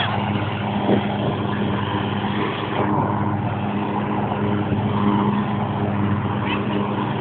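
Ride-on lawnmower engine running at a steady speed.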